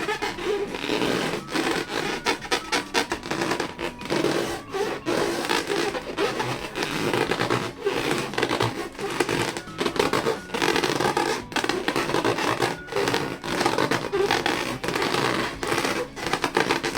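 Rubber balloons being rubbed and squeezed by hand, a dense, irregular rubbing and scraping with constant quick rises and drops.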